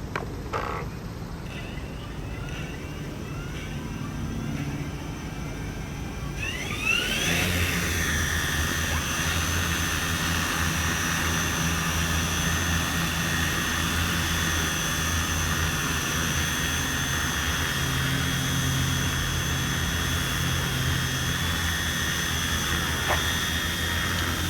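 Multirotor agricultural spraying drone's electric motors and propellers. They spin at low speed at first, then about seven seconds in rise sharply in pitch as the drone throttles up. After that they run with a steady whine and propeller hum.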